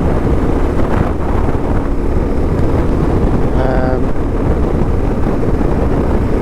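Steady wind and road noise of a moving vehicle picked up by a camera mounted on its outside, with wind buffeting the microphone. A short pitched sound cuts in briefly a little past halfway.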